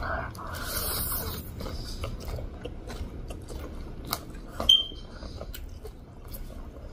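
Chow mein noodles slurped for about the first second and a half, then close-up chewing with wet clicks and lip smacks. A couple of sharp clicks near the middle, the second with a brief ringing tone like a fork tapping a plate.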